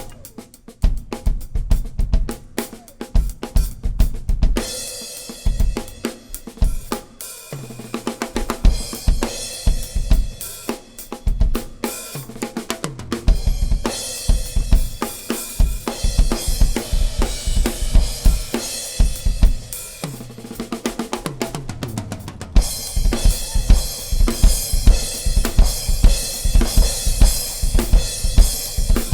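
Drum kit solo: rapid snare and tom fills with kick drum hits and crashing cymbals, the cymbals washing most heavily in the last quarter.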